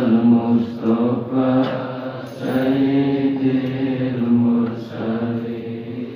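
Arabic devotional chanting, a sholawat on the Prophet, sung in long held notes, phrase after phrase with short breaks between.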